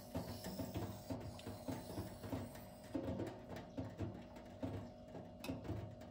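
Steel knife blade drawn in light, even deburring strokes across a sharpening waterstone, a soft scrape about twice a second.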